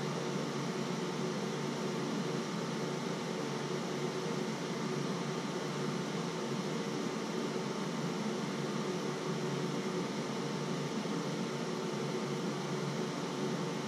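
Steady hum and hiss, even and unchanging, with a faint thin tone over it.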